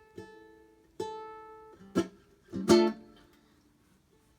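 Single notes plucked one at a time on an acoustic string instrument, each left to ring and fade, with a louder pair of notes near the middle, picked out haltingly as if recalling a part.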